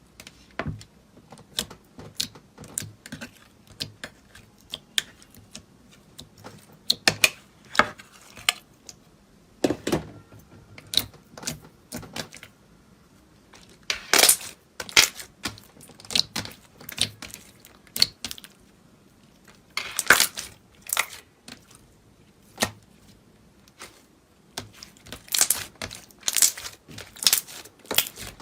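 An irregular run of sharp crackles, clicks and pops from a crunchy material being crushed and pressed, thickening into louder clusters several times.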